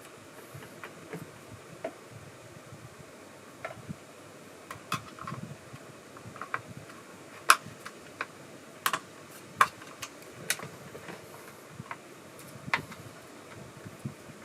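Irregular sharp clicks and clinks of small metal parts being handled, a few louder ones in the second half, as the guide bar and chain of a chainsaw are fitted and the chain tension is adjusted.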